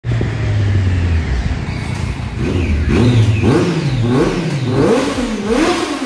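Triumph Daytona's three-cylinder engine with an Arrow slip-on exhaust, running steadily for about two seconds, then revved up and down in several quick throttle blips.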